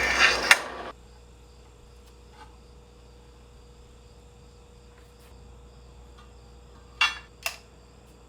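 Harsh rasping of metalwork that cuts off abruptly about a second in, followed by a faint steady shop hum. Two sharp clacks come near the end, half a second apart.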